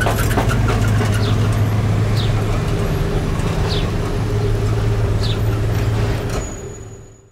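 Lowrider car's engine running with a steady low hum, with a flurry of clicks in the first second and a few faint short high chirps. It fades out near the end.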